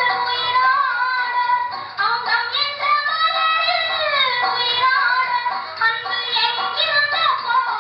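A song with a woman singing a flowing melody with long held and gliding notes over instrumental backing.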